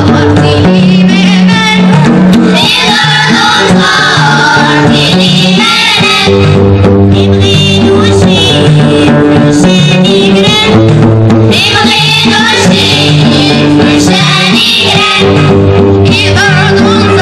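A children's choir sings an Amazigh song together, accompanied by a small band of plucked strings and drum.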